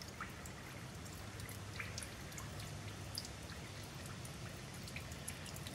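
Faint, irregular small pops and drips of fuel draining back through an opened clear fuel line as air bubbles up into it, over a low steady hum. The fuel running back is the sign of a fuel-pump check valve suspected of not holding its seal.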